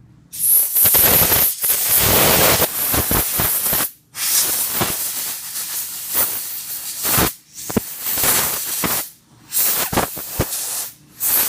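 Compressed air blown through the jets and passages of a small-engine carburetor: a loud hiss in several long blasts with brief breaks between them, clearing the passages during a carburetor cleaning.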